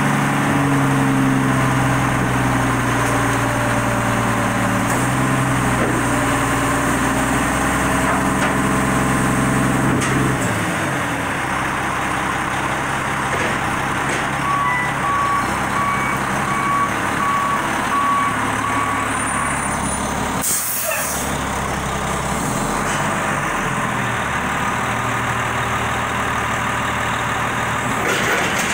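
Volvo WX garbage truck's diesel engine running high for the Labrie Optimizer front-loader's hydraulic arms working a dumpster, dropping back to a lower idle about ten seconds in. A back-up alarm beeps steadily for several seconds past the middle, and an air brake lets out a short hiss about two-thirds through.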